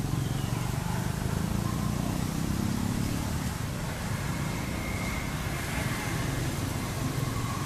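Steady low outdoor rumble with an even hiss. Faint, brief high tones come in about five seconds in and again near the end.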